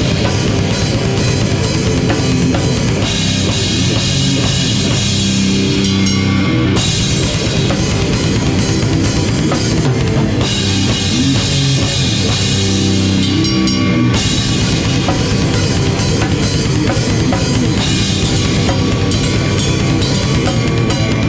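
A live rock band playing loudly, with the drum kit to the fore: a pounding bass drum and crashing cymbals over the rest of the band.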